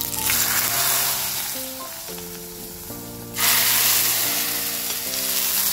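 A tempering of curry leaves, mustard seeds and urad dal sizzling in hot coconut oil in a pan. About three and a half seconds in, a sudden, much louder sizzle as the hot tempering is poured into the curry in a clay pot.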